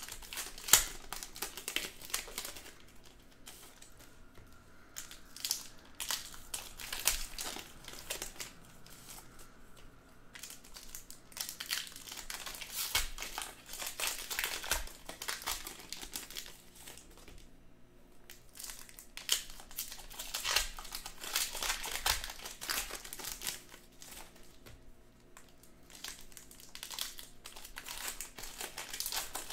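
Trading-card pack wrappers crinkling and tearing as packs are opened by hand. The crisp crackling comes in bursts of a few seconds with short pauses between.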